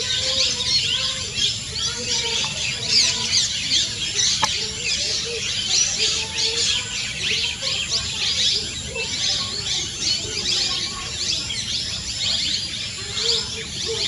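A dense, steady chorus of wild birds: many quick high chirps overlapping without a break, with fainter lower calls underneath.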